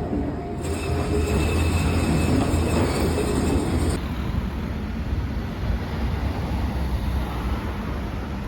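Train running on the track: a steady low rumble of wheels on rails, with a thin high wheel squeal during the first few seconds. The sound changes abruptly about four seconds in to a steadier, quieter rumble.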